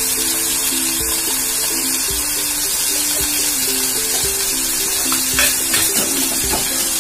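Chicken pieces sizzling in hot oil in a frying pan, a steady high hiss, under background music with a simple melody of held notes. A few light clicks of a metal spatula against the pan come near the end.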